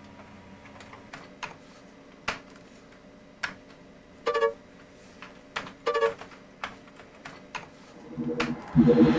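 Computer keyboard keys pressed one at a time, sharp separate clicks at an uneven pace, with two short pitched blips in the middle. Loud music comes in near the end.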